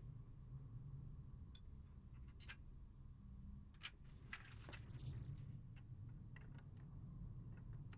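Faint metallic clicks and clinks of hand tools and bike parts during assembly work, with a short jingling rattle about halfway through, over a low steady hum.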